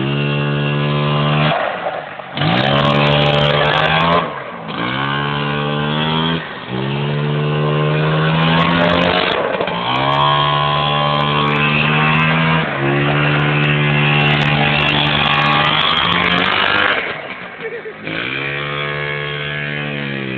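Sport quad (ATV) engine revving hard in repeated throttle pulls: each rises in pitch, holds high for a second or two, then drops back as the throttle is released, about six times. Near the end the engine settles lower and quieter.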